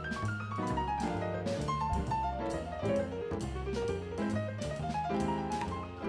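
Background music led by piano, with a bass line and light drums; a run of piano notes falls in pitch over the first three seconds.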